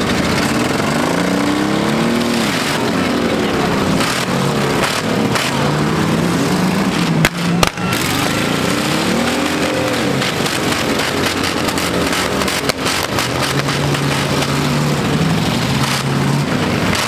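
Several demolition-derby pickup truck engines revving up and down over one another as the trucks ram each other, with a couple of sharp crashes a little past seven seconds in.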